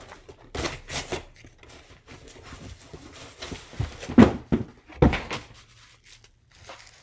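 Cardboard shipping box torn open and plastic bubble-wrap packing rustling and crinkling as it is pulled out and tossed aside, with two sharp thumps about four and five seconds in.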